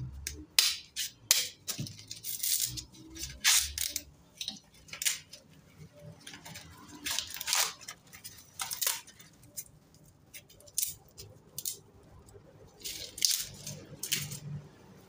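Green husks being ripped and peeled off fresh ears of corn by hand, in irregular crackling, rustling tears that come in clusters.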